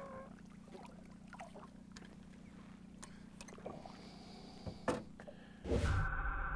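Gentle splashing and trickling of lake water against the side of a boat as a lake trout is held in the water for release, over a low steady hum, with a sharp click near the end. About 5.7 seconds in the sound switches suddenly to a louder, muffled steady rush.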